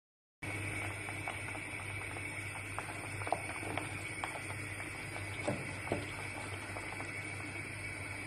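Broth with diced potatoes and cherry tomatoes bubbling at a boil in a pan, with scattered small pops over a steady hum. The sound drops out for a moment at the very start.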